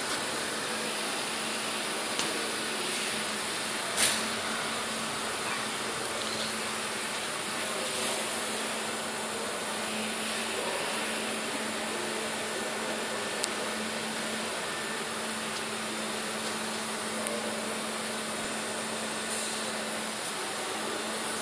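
Steady machine hum with a constant low tone and a hiss of workshop machinery, with a few faint clicks and knocks; the loudest knock comes about four seconds in.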